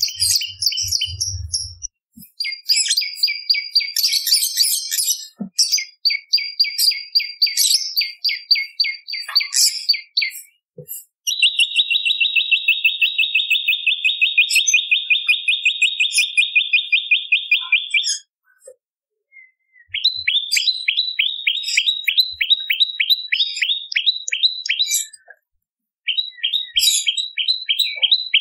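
Prenjak lumut calling in long runs of rapid, evenly repeated sharp chirps, with short pauses between the runs; the middle run is an especially fast, even trill.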